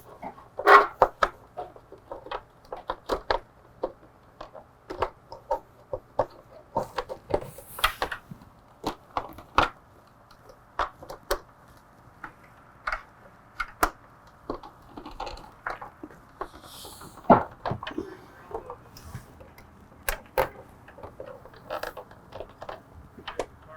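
Irregular small clicks and knocks of hands fitting a flush-mount turn signal and its clamp into a motorcycle's plastic fairing. The taps come in uneven clusters, with a few sharper knocks.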